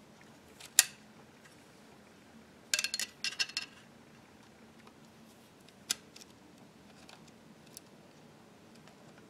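Small clicks and clinks of a screwdriver and small parts being worked inside a BRS-99 pistol's receiver. There is one sharp click about a second in, a quick rattling run of clicks around three seconds in, another click near six seconds, and a few faint ticks after that.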